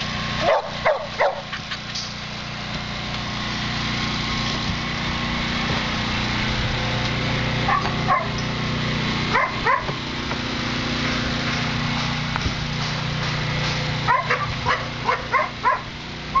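Dogs barking: a few barks about half a second in, a couple more around eight and nine and a half seconds, and a quick run of barks near the end, over a steady mechanical hum.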